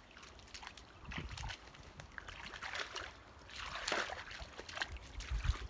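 Two dogs wading in shallow pond water at the bank, sloshing and splashing irregularly, the splashing swelling about four seconds in. A low thump near the end.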